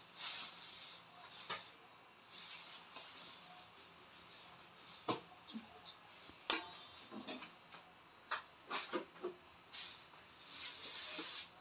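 Flour being worked through a wire-mesh sifter with a metal utensil: repeated rasping, scraping strokes of about a second each, with a few sharp clicks of metal against the sifter and the stainless steel bowl.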